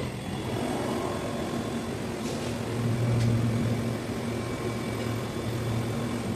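Kaeser air compressor running steadily: a constant low hum over a broad rushing noise.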